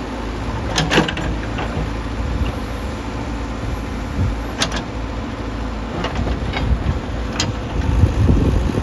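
JCB 3DX backhoe loader's diesel engine running steadily under working load, swelling louder near the end. A few sharp knocks of the steel bucket and arm, about a second, four and a half seconds and seven and a half seconds in.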